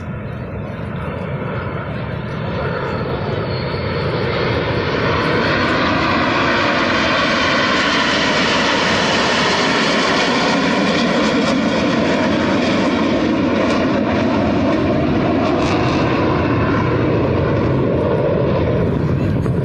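Aerobatic display aircraft flying past. Their engine noise builds over the first few seconds, then holds loud and steady, its tone slowly shifting as they pass.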